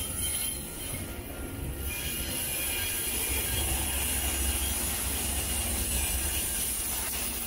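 Metra push-pull commuter train rolling past at close range: the bilevel cars' wheels clatter and squeal on the rails, with thin high squeal lines coming in about two seconds in, over the steady low rumble of the diesel locomotive pushing at the rear, which draws level near the end.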